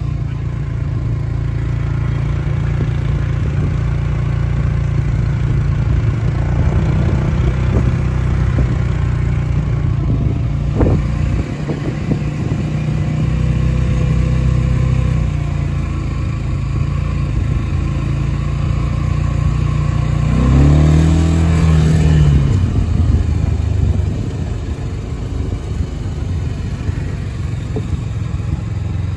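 Small engine of an open off-road vehicle running steadily as it drives over a dirt track. About twenty seconds in, the engine revs up and back down.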